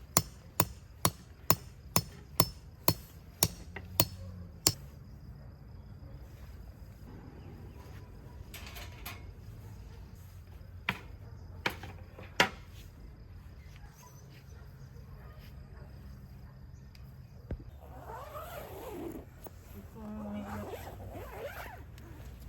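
Hammering tent stakes: a quick, even run of about ten sharp strikes, roughly two a second, that stops about five seconds in, then three more strikes a few seconds later. Near the end come a couple of short sounds that slide up and down in pitch, like a voice.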